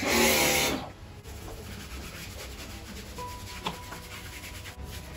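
Bosch Aquatak 125 pressure washer running and spraying through a foam lance in a short burst that cuts off under a second in. Then a wash mitt rubbing over the foam-covered car body, a soft steady scrubbing.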